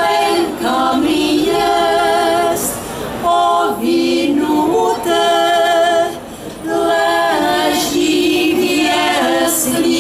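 A group of women singing a Moravian folk song a cappella, with no instruments. They sing in long held phrases with short breaks for breath about three and six seconds in.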